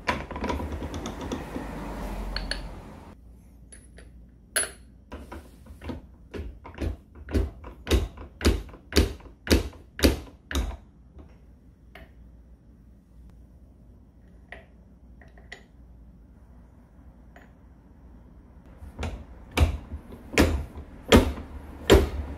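Sharp metal knocks, about two a second, as the steel spindle and bevel gear of an angle grinder's gear head are driven home in a vise. The blows grow louder over the first run of a dozen or so, stop, and start again near the end.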